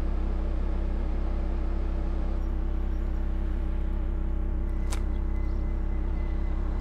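Car driving, heard as a steady low rumble, with a single sharp click about five seconds in.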